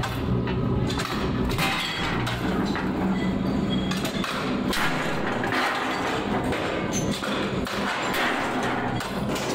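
Metalworking machinery in a sprocket factory: a dense run of metal knocks, thuds and clinks over a steady mechanical din.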